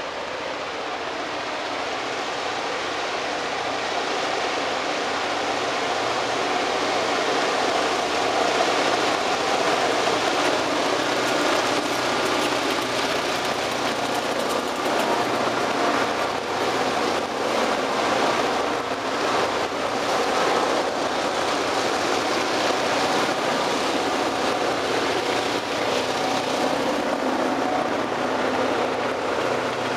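Maryland Midland train of five EMD GP38 diesel locomotives working hard up a steep grade, their two-stroke V16 engines growing louder over the first several seconds as they come close and pass. The wheels of the covered hopper cars that follow then roll past.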